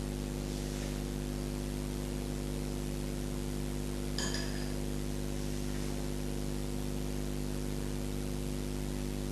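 Steady electrical hum with a light hiss behind it, and one faint tap about four seconds in.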